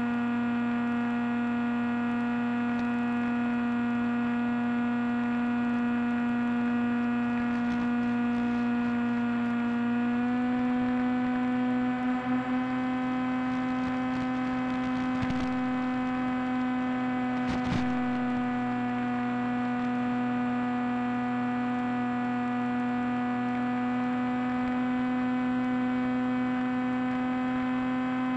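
The Teksumo's electric motor and propeller running steadily, heard over the FPV link's audio as a buzzing hum with many overtones; the pitch steps up slightly about ten seconds in as the throttle rises. A couple of brief crackles come through a little after that.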